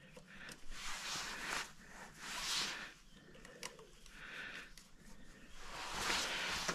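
Handling noises during a tyre-pressure check on a small motorbike: about four short scuffing, hiss-like noises and a single click, each rising and fading.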